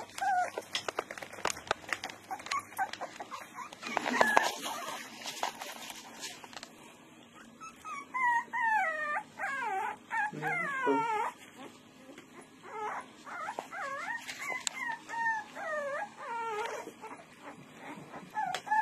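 A puppy whining and whimpering: runs of high, wavering whines that rise and fall, about eight seconds in and again around fourteen seconds. Short clicks and rustling come before them in the first few seconds.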